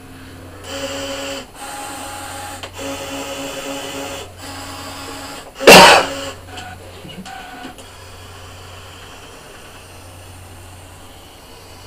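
Brother ScanNCut DX SDX1200 cutting machine cutting card: its motors whine in short runs of about a second each, stopping and starting as the blade carriage moves. A single sharp, loud knock a little past halfway is the loudest sound, followed by a few shorter motor runs and then a low steady hum.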